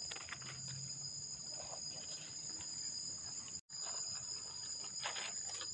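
Steady, high-pitched chorus of forest insects holding two constant tones, with faint rustling of dry leaves as mushrooms are picked from the leaf litter. The whole sound cuts out for an instant a little past halfway.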